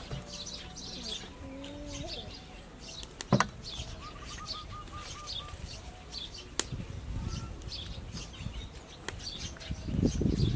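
Small birds chirping and twittering, with a short trill about four seconds in. A sharp knock cuts in at about three and a half seconds and a lighter click near seven seconds.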